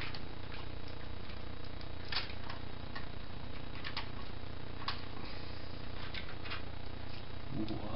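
Scattered small clicks and taps of parts being handled and fitted inside an opened PlayStation 1 console, over a steady low hum.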